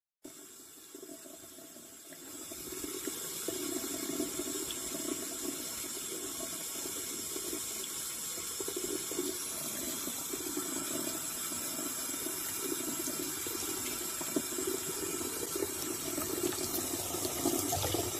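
Kitchen faucet running a thin stream of water that splashes into a mug in the sink. It grows louder about two seconds in, then runs steadily.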